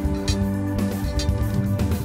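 Background instrumental music with plucked and strummed guitar and a steady beat.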